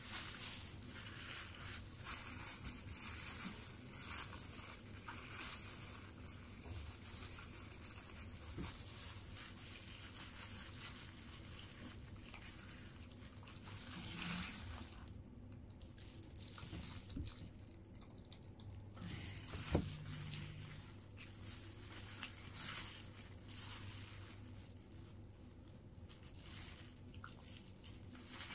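Plastic-gloved hand rustling and crinkling against paper wrapping while tearing fried chicken and mixing rice with sambal matah, with scattered soft crunches and scrapes.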